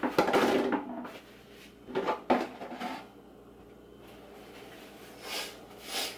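Household kitchen clatter as things are handled: a rattling clatter at the start, a sharp knock about two seconds in, and two softer brushing sounds near the end, typical of cupboards, drawers or cookware being moved.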